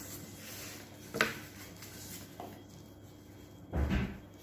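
Handling noise from a plastic Commodore 1530 Datassette and its foam packing: a sharp click about a second in, then a louder, duller thump near the end as a foam end-piece is pulled off the unit.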